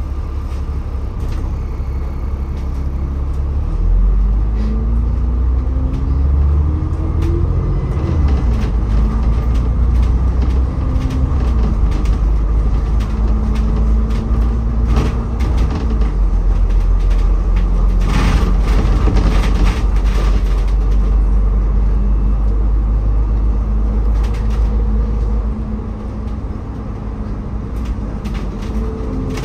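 City bus engine and drivetrain heard from inside the passenger cabin: a deep, loud rumble, with the engine note rising twice as the bus pulls away and accelerates through the gears, then holding steady while it cruises.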